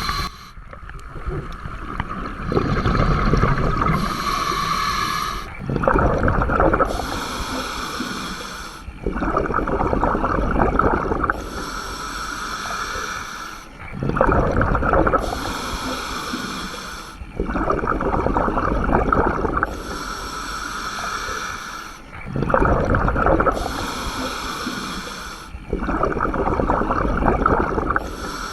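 Scuba diver breathing through a regulator: a hissing inhale through the demand valve, then an exhale that releases a rush of bubbles. The cycle repeats steadily about six times, roughly once every four seconds.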